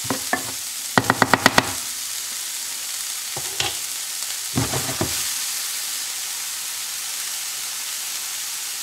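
Diced onion sizzling in a hot, dry stone-coated frying pan while a spatula stirs and scrapes it, with a quick run of about six taps around one second in and a few more knocks before five seconds. After that only a steady, gentle sizzle: the onions sweating without oil or butter.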